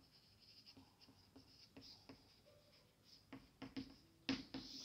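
Chalk writing on a blackboard: faint scratching and tapping strokes, with a few sharper chalk taps near the end.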